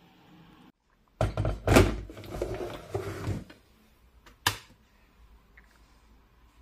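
Knocking and clattering of things being handled on a kitchen worktop for about two seconds, then a single sharp click as the electric kettle is switched on.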